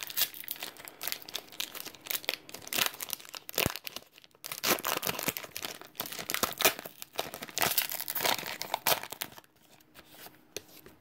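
Pokémon trading-card booster pack wrapper crinkling and tearing as it is opened by hand, a dense run of irregular rustles that dies down about nine seconds in.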